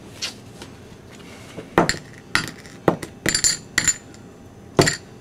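Poker chips clicking against one another as they are pushed into the pot: a run of sharp clicks, several coming close together a little past the middle.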